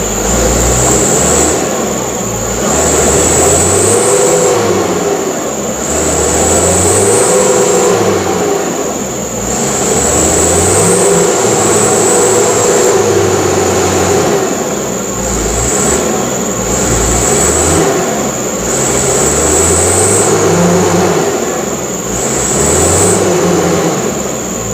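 Mitsubishi Canter truck's diesel engine revving hard in repeated surges, rising and falling every two to three seconds, with a high whistle that climbs with each surge.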